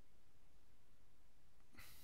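Faint steady room hiss, with one short breath taken in near the end.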